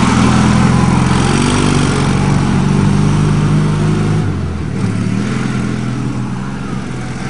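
Engine of an eight-wheeled Argo amphibious ATV running under throttle as it drives across rough dirt. The engine note drops briefly about four seconds in, then picks back up.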